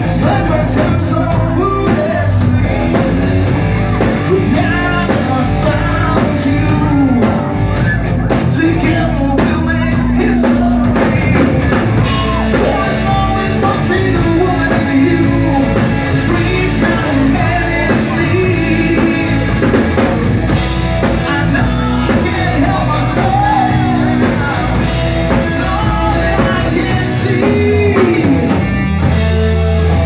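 A live rock band playing loud: a male singer over electric guitar, bass guitar and a drum kit.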